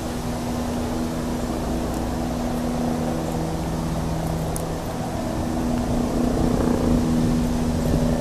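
A steady engine drone with an even, humming pitch over a rough low rumble, growing louder in the last few seconds.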